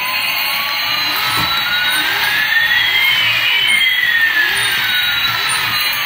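Electronic jet-engine sound effect from a battery-powered toy Airbus A380: a steady hiss with one whistling tone rising and another falling, the two crossing about halfway through.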